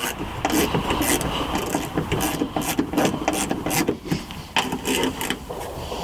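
Hand work inside a car door: a run of irregular clicks, rattles and scrapes of metal parts and tools, several a second, as the door latch assembly is worked loose and removed.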